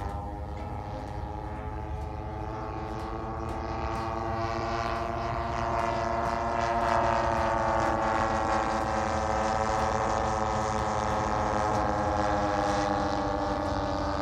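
Twin-engine piston propeller plane droning as it flies past overhead. The sound grows louder over the first half, and its pitch drops slightly as the plane passes.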